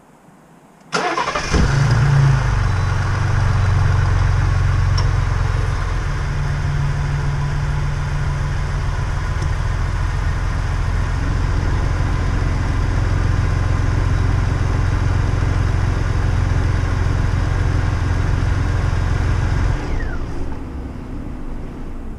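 A 2018 Ford F-150 Raptor's twin-turbo 3.5 L EcoBoost V6 is cranked and catches about a second in, then idles steadily on fresh oil after its first oil change, sounding a little quieter with its new aluminum oil pan. About 20 seconds in it is shut off and runs down with a brief falling whine.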